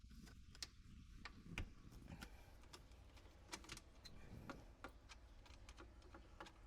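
Faint, irregular small clicks and taps of hands and tools handling the old garbage disposal and its fittings under the sink, the clearest about a second and a half in.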